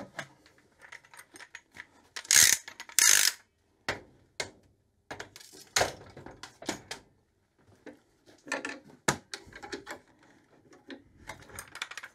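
Long metal bar clamps being loosened and taken off a glued-up wooden box: scattered clicks and rattles from the clamp screws and jaws, with two louder scrapes about two and three seconds in.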